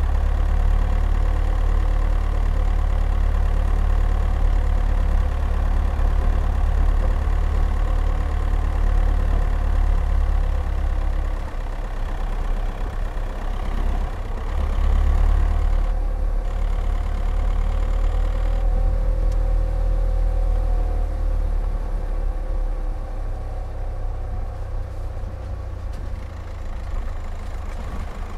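Skoda Octavia's 1.9 TDI four-cylinder turbodiesel running steadily as the car drives slowly, with a strong low rumble. It grows a little quieter toward the end.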